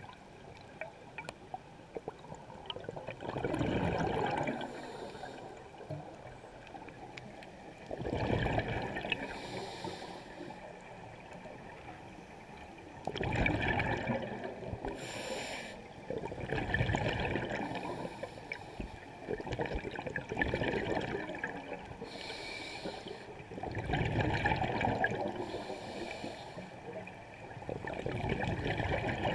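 A scuba diver's regulator breathing, heard underwater: exhaled bubbles rush out in bursts about every four seconds, seven times in all.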